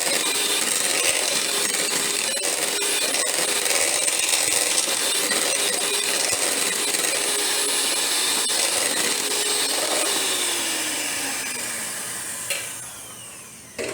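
Electric hand mixer running steadily as it whips a thick hair-grease mixture in a bowl. About ten seconds in it is switched off, its pitch falling and the sound fading as the beaters spin down, with a click near the end.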